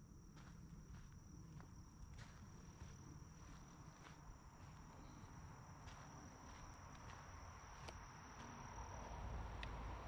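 Faint, steady high-pitched insect trill with soft, scattered footsteps on a forest trail. A low rushing noise grows louder near the end.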